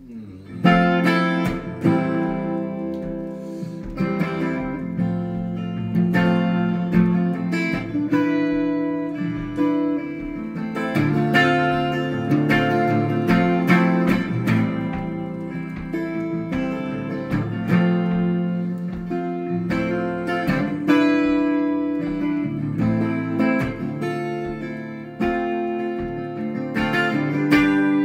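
Hollow-body guitar played solo and without singing, strummed chords and picked notes ringing out at a slow, steady pace. The playing starts suddenly about half a second in.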